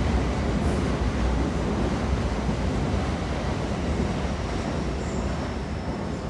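Train running, a steady low rumble with an even rushing noise over it.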